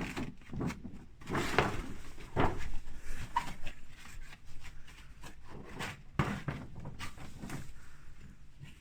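Cardboard and plastic doll packaging being handled and opened: irregular knocks, clicks and rustling, busiest in the first few seconds and fading toward the end.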